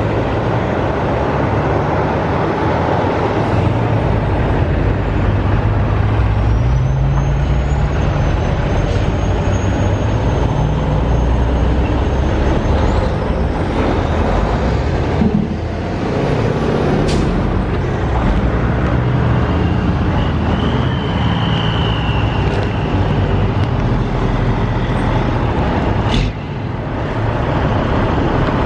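Road traffic: a heavy vehicle's engine running close by, its low pitch rising and falling over a continuous rumble.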